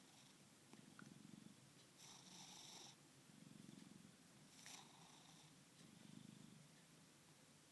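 Faint purring of a sleeping house cat, rising and falling in slow, even swells with its breathing. Twice, about two seconds in and again just before five seconds, a breathy, whistling snore joins it.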